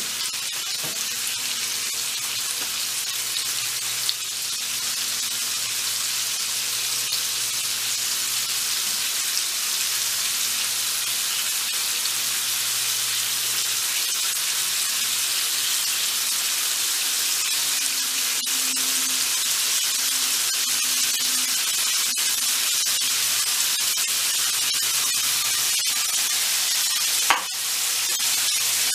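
Thin strips of beef sizzling in hot oil in a frying pan: a steady frying hiss dotted with small spattering pops, growing slightly louder. One sharp click sounds about a second and a half before the end.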